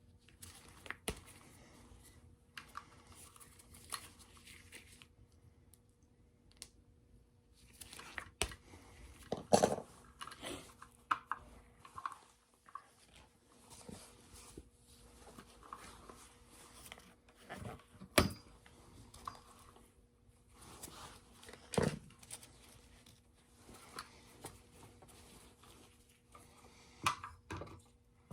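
Hand work on electrical wiring: scattered sharp clicks, snips and rustling as wire leads are cut, stripped and twisted together under wire nuts. A faint steady hum runs underneath.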